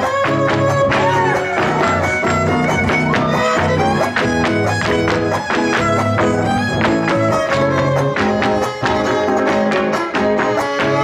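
Huasteco trio playing an instrumental huapango passage: a fiddle carries the melody over fast, rhythmic strumming of the huapanguera and jarana. Dancers' zapateado footwork on the wooden stage mixes with the strums.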